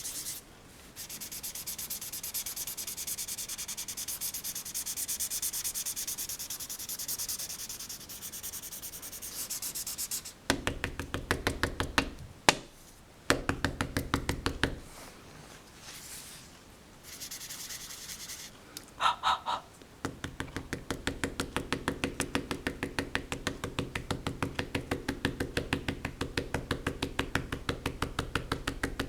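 Pencil graphite scratching on paper in quick back-and-forth shading strokes. The first part is light and hissy; about ten seconds in the strokes turn heavier and fuller, with a few sharp taps, and near the end they settle into a fast, even rhythm.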